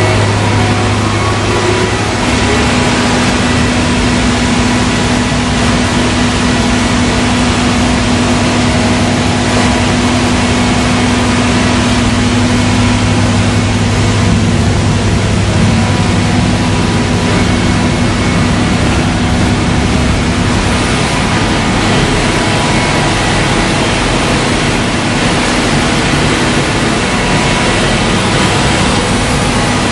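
Weber KLE 2000 wide belt sanding machine running, a steady machine noise with a constant low hum.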